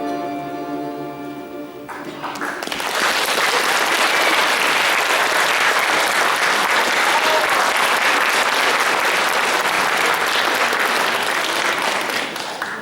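The last held chord of the music dies away, and about two seconds in the audience breaks into loud, steady applause, which drops off right at the end.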